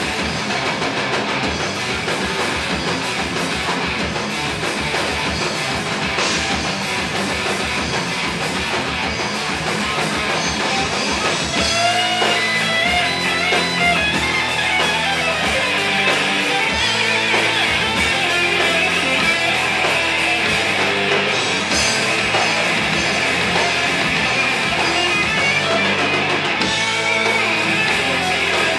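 Metal band playing live: distorted electric guitars over a drum kit. About halfway through, the riff changes and the music gets a little louder.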